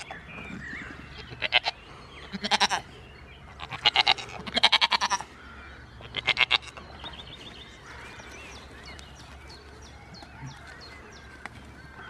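Goats bleating: about five loud, wavering calls in the first seven seconds, two of them close together near the middle of that stretch, then the calls stop.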